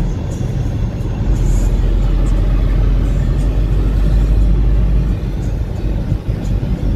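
Low, steady rumble of a car's engine and tyres heard inside its cabin while it drives along a paved road.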